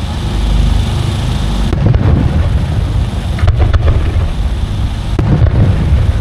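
Aerial firework shells bursting overhead: a continuous low rumble of booms with several sharper bangs in quick clusters.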